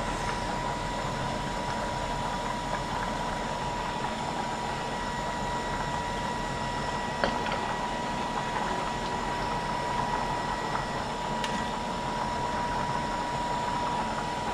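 Steady mechanical hum with a constant high whine, and a sharp clink, such as a metal spoon on the pan, about seven seconds in.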